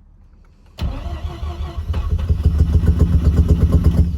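Swapped 13B-REW twin-rotor rotary engine in a Mazda RX-8 turning over about a second in, then catching and running with a fast pulsing beat that grows stronger, before dying at the end. This is a cold, flooded engine started on starter fluid that won't stay running.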